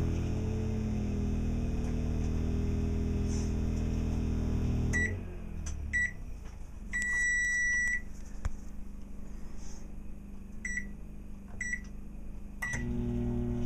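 Microwave oven running with a steady electrical hum on generator power, then stopping about five seconds in. A series of short electronic beeps and one long beep of about a second follow. Near the end it starts again with a beep and the hum returns.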